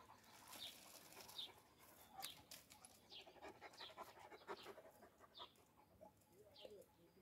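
Faint panting of a large shepherd dog.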